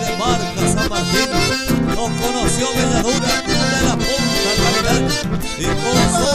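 Live amplified instrumental dance music: two button accordions playing the melody over an acoustic guitar and a steady beat.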